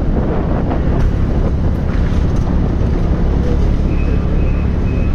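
Wind rumble on the microphone of a moving two-wheeler, mixed with the bike's engine and road noise in a steady, loud drone. Near the end, a faint high beep repeats about twice a second.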